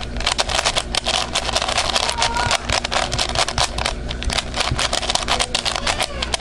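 Rapid, irregular plastic clicking and crackling from a QJ 4x4 speed cube being turned, over a steady low hum.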